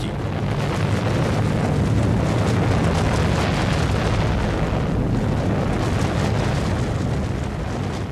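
Deep, continuous rumble of an atomic bomb blast, laid in as a sound effect. It swells over the first couple of seconds and slowly eases toward the end.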